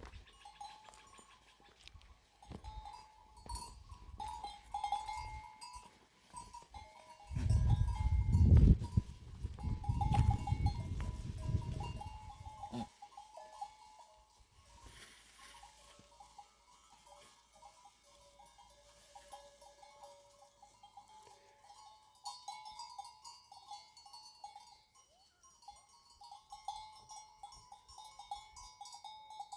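Livestock bells on a grazing flock of goats and sheep, clinking on and off. A loud low rumble covers the bells for about five seconds in the middle.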